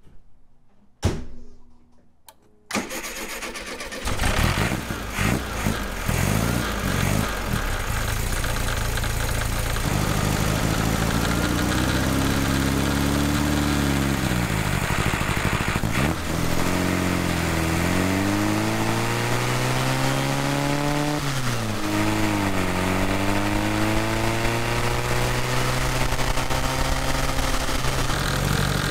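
VW Beetle Type 1 air-cooled flat-four engine heard close from its engine bay, starting about three seconds in. It then pulls away on a test drive, rising in pitch under acceleration and dropping sharply at two gear shifts, over road and wind noise.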